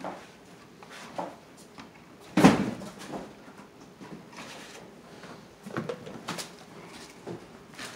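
Irregular knocks and clicks of hands and tools working wires into a metal electrical outlet box, with one louder knock about two and a half seconds in.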